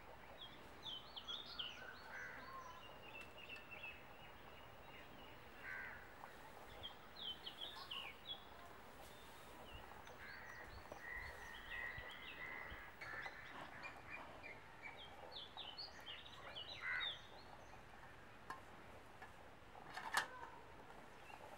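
Faint outdoor ambience of small birds chirping on and off over a low steady hiss, with one sharp knock near the end.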